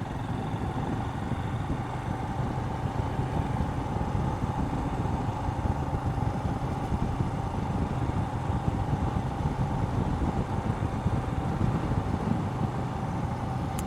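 Royal Enfield Himalayan's single-cylinder engine running steadily while being ridden.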